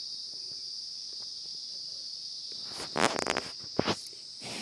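Crickets chirring steadily in a high, even drone. About three seconds in, a short loud rustle as a bag or cloth bundle is handled, and a light knock just after.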